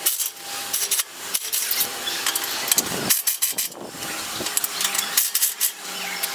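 Corded electric wrench running in short bursts with clattering knocks, loosening the nuts that hold the mould of a concrete block machine.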